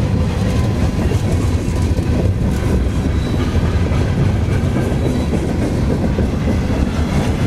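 Freight cars of a CSX manifest train rolling past close by: a steady low rumble with the clickety-clack of steel wheels over the rail joints.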